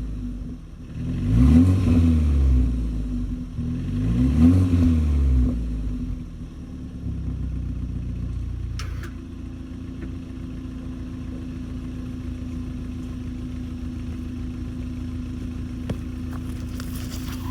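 BMW G20 330i's turbocharged 2.0-litre four-cylinder on its stock exhaust, blipped twice with the revs rising and falling back, then settling into a steady idle.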